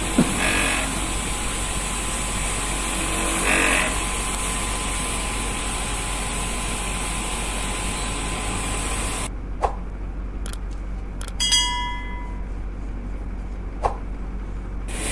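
An old R22 Panasonic 1.5 PK split air conditioner's outdoor compressor runs with a steady, rough, snoring ("ngorok") noise. It sounds like a compressor working hard, which the technician takes for an early sign of compressor failure, typical of low oil. About nine seconds in, the noise cuts off. A few sharp clicks and a short electronic chime follow.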